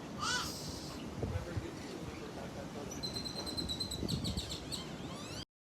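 Birds calling: a short call at the start, then a quick run of high, evenly spaced chirps about three seconds in, followed by more chirps and a few falling notes. The sound cuts off abruptly just before the end.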